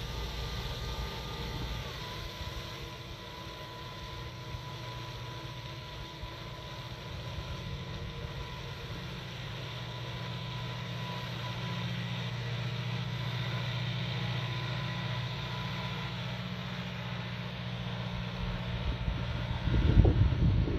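Valtra C120 tractor running steadily as it pulls a Matti slurry tanker spreading slurry, with a thin steady whine that dips slightly in pitch about two seconds in. Gusts of wind buffet the microphone near the end.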